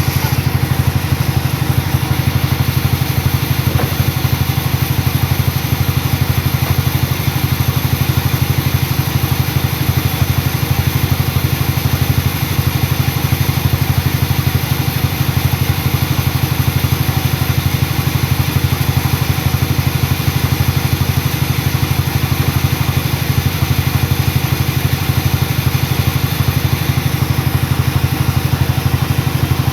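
Sawmill engine running steadily at one speed, a fast even pulsing drone.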